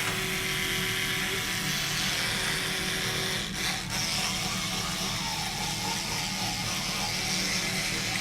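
Electric toothbrush running with a steady buzz, dipping briefly twice a little past the middle.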